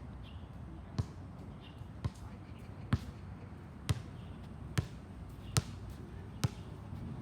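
A basketball being dribbled: seven sharp bounces at a steady pace of about one a second, over a steady low background noise.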